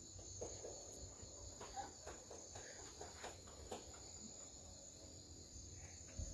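Crickets chirping faintly, a steady high-pitched trill, with a few soft clicks.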